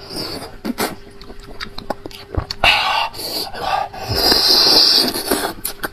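Sucking and slurping marrow out of the open end of a cooked beef marrow bone. Small wet mouth clicks come first, then, from about halfway, longer hissing slurps as air and marrow are drawn through the lips.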